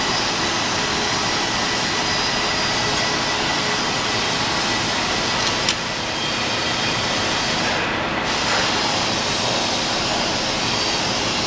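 Steady, even rushing background noise with a faint steady tone in it, and a single sharp click a little past halfway.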